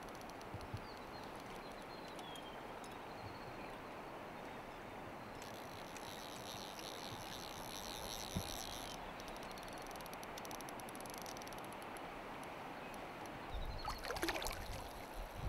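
Steady rush of a clear, shallow river flowing over stones. A few faint high chirps come in the first few seconds, and louder rustling and knocks come in near the end.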